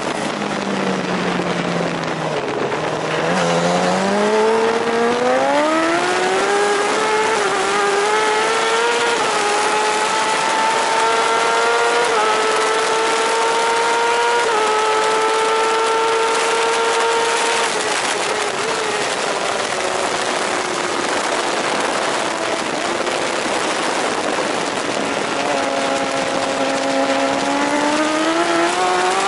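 Onboard sound of a JSB1000 superbike's racing engine: the note drops low as the bike slows hard, then climbs in steps through the gear changes, holds a steady high pitch at speed, and falls away under braking before rising again near the end as the bike accelerates out of the corner. Wind rushes over the bike-mounted microphone throughout.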